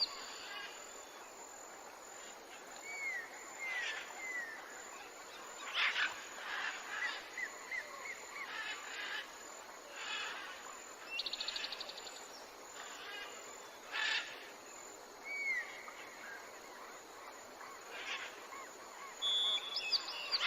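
Birds calling with scattered short chirps and little whistled glides, and a brief fast rattling trill about eleven seconds in, over a faint outdoor hiss.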